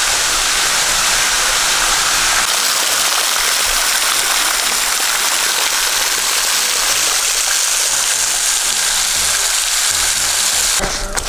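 Waterfall close by: a steady, even rush of falling water that cuts off suddenly near the end.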